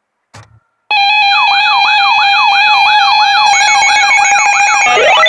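Loud electronic siren alert used as an emergency warning's attention signal: after a short click, several steady alarm tones start together about a second in with a fast yelping sweep going up and down about three times a second, and near the end a second siren begins rising in pitch.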